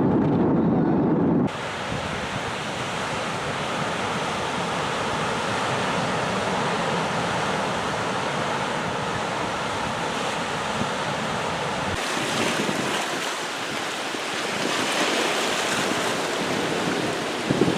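Ocean surf washing onto a beach, a steady wash of waves with wind on the microphone. For the first second and a half a louder low rumble is heard, cutting off abruptly.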